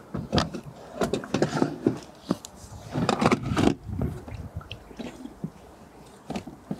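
Plastic camper-van toilet cassette being slid into its compartment: a dense run of scrapes, knocks and clicks in the first few seconds, then a few sparser clicks as it is settled in place.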